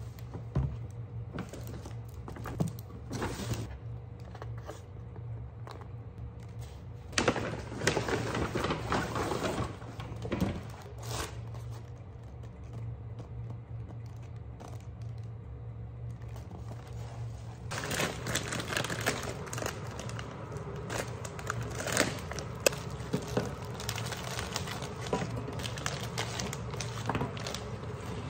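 Plastic produce bags and packaging crinkling and rustling as groceries are lifted out of a paper shopping bag, loudest about a quarter of the way in. About two-thirds of the way in it gives way to a steady crackling sizzle of nuggets shallow-frying in oil in a frying pan.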